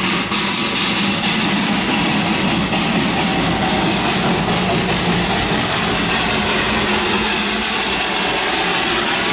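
Darjeeling Himalayan Railway narrow-gauge toy train running, a steady, even rumble and rattle with a few clicks at the start.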